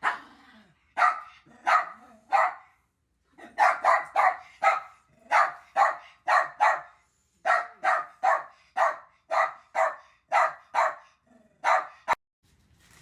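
A dog barking sharply about twenty times, in quick runs of three to five barks with short pauses between runs, the way a dog barks at a new puppy it is not yet used to. A single click sounds near the end.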